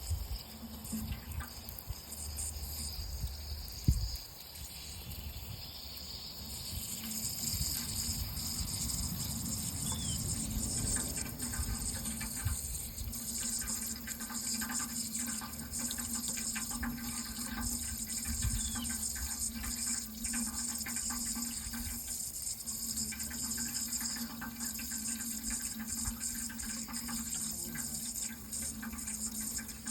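Running water, flowing steadily, with a single thump about four seconds in. From about seven seconds the water grows a little louder and hissier.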